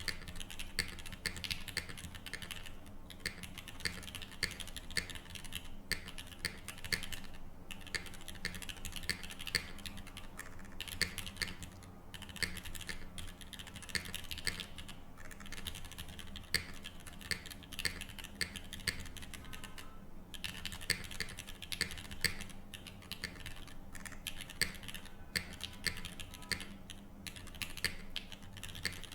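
Typing on a Tofu60 3.0 mechanical keyboard with Gateron L'Orange linear switches in an aluminium plate, no foam, and KKB Cinque Terre keycaps: a steady run of key clacks, broken by short pauses every few seconds.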